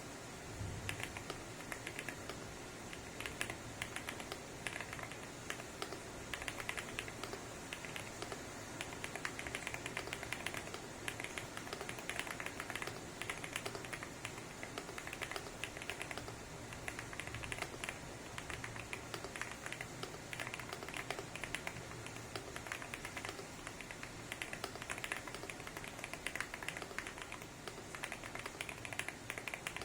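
Fast typing on a Weikav Stars 75 custom mechanical keyboard with KTT Rouge POM linear switches and thick PBT Cherry-profile keycaps in an aluminium gasket-mount case. The keys give a dense run of clacks in uneven bursts.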